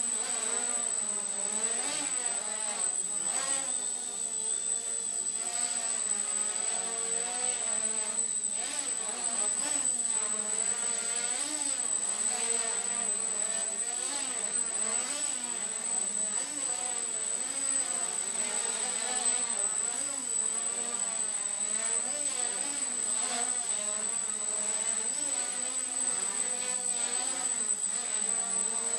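Micro quadcopter's four small 2900kv brushless motors spinning 5030 propellers, buzzing as it hovers and manoeuvres. The pitch keeps wavering up and down as the motor speeds change.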